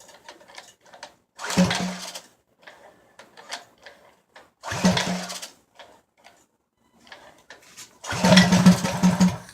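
Small 7 hp gas engine, choked for a cold first start, being cranked over three times. On the third, longer try it fires and runs for about a second before dying.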